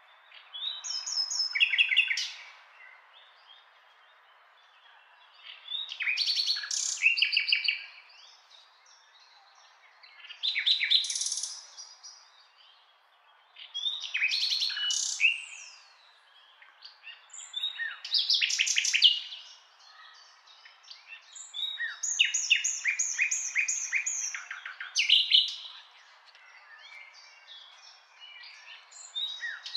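Songbird singing: varied phrases of quick chirps and trills, each a second or two long, repeated every three to four seconds.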